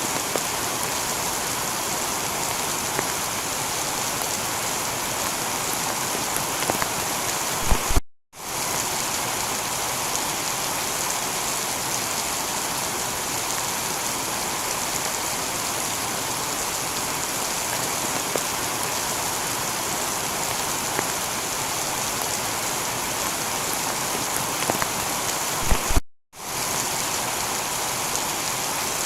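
Heavy rain falling steadily on a tiled roof, an even hiss of rain. It cuts out to silence for a split second twice, about eight seconds in and again near the end.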